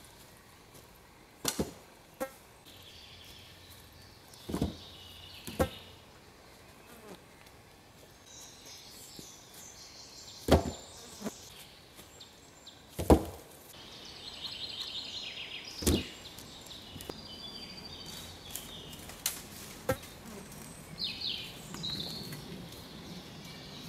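Sharp wooden knocks, several seconds apart, as long poles are dropped and knocked into place on a raised log bed frame. High chirping and trilling from birds carries on between the knocks.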